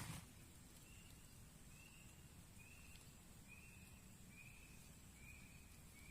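Faint, short chirps of a small animal, repeated evenly about once a second over a faint steady high-pitched whine, like insects. A loud rain-like hiss cuts off suddenly at the very start.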